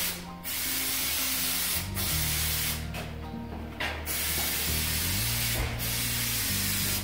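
Aerosol can of spray adhesive hissing as it is sprayed along a drywall soffit edge for corner bead, in several long bursts with short breaks between them.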